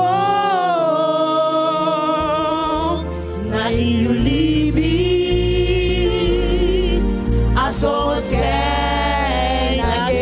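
A gospel worship team singing into microphones in Sranan Tongo, with long held notes and vibrato in the voices. A low instrumental accompaniment comes in about two seconds in.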